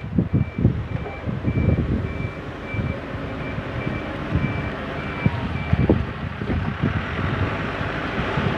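A JCB 3CX backhoe loader's reversing alarm beeps about twice a second while the machine backs up, stopping about six seconds in, over the rumble of its running diesel engine. Wind buffets the microphone.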